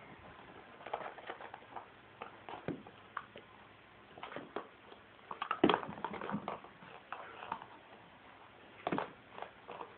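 A kitten playing with a paper cup on a tile floor: irregular light taps, knocks and scuffs of the cup against the tiles, with the loudest cluster about halfway in.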